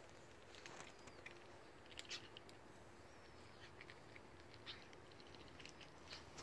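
Near silence: faint scattered clicks and taps, with a couple of faint high chirps.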